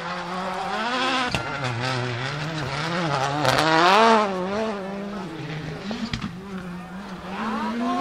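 Audi S1 RX rallycross car's turbocharged four-cylinder engine at full race revs, its pitch rising and falling several times as the throttle is worked through a gravel corner. It is loudest about four seconds in.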